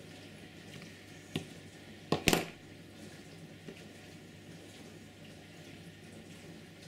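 A few sharp clicks and taps from small tools and a plastic model locomotive chassis being handled on a workbench, the loudest a quick double click about two seconds in, over a low steady hiss.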